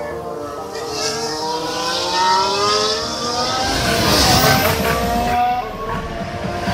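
Race car engines on a circuit: several cars passing in turn, their engine notes overlapping and gliding up and down in pitch as they accelerate. A heavier, rougher low rumble comes in a little over halfway through as a car comes closer.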